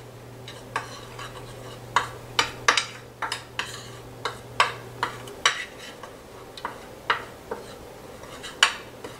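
A metal spoon stirring a flour and cornstarch dredging mix in a glass baking dish, clinking and tapping irregularly against the glass.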